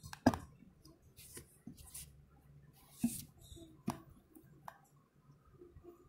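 Close handling noise: a sharp knock about a third of a second in, then a few softer knocks, clicks and rustles spread through the rest.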